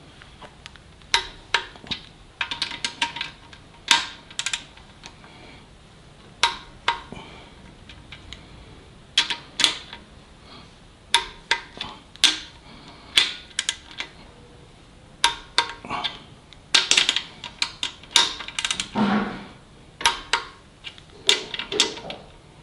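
Torque wrench on the main-cap girdle nuts of a 440 Mopar block: sharp metallic clicks and short runs of ratcheting, coming in irregular bursts as each nut is drawn down in turn.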